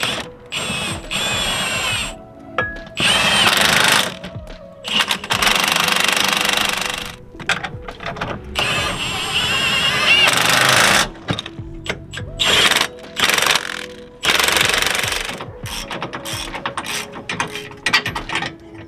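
Milwaukee cordless power tool driving the upper mount bolt of a Falcon front shock, in repeated bursts of one to two seconds with short pauses, then a run of short blips near the end as the bolt is snugged down.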